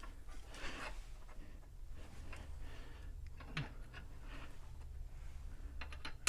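Metal pivot pin being worked by hand into its bore in a pivot piece: faint rubbing and small metal clicks, with a quick run of clicks near the end, over a steady low shop hum.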